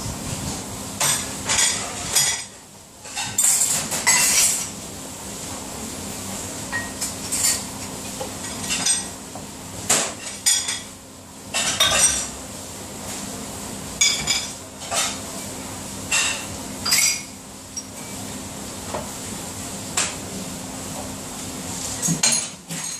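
Ceramic plates and cups clattering and clinking against each other and a plastic dishwasher rack as they are loaded, in irregular clusters of knocks, over a steady low hum.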